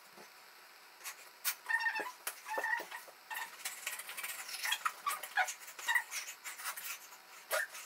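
Feet thumping and shuffling on a wooden parquet floor during dancing, with scattered sharp knocks and a few short high squeaks about two seconds in.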